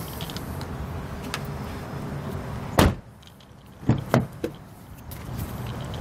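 An SUV's front door slammed shut with one solid thud about three seconds in, then a door latch clicking twice or three times as a rear door is pulled open. The steady cabin noise drops when the front door shuts and comes back as the rear door opens.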